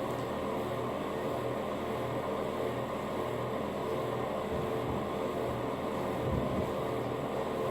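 Steady low hum of room noise from a running fan or air conditioner, with a few faint low knocks about halfway through.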